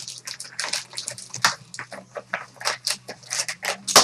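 Trading card packs being torn open and handled: quick, irregular crinkling and rustling of foil wrappers and cards, with a steady low hum underneath.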